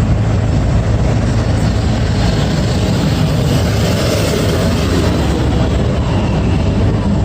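Airport apron bus driving, heard from inside the passenger cabin: a steady engine and road rumble with a constant low hum.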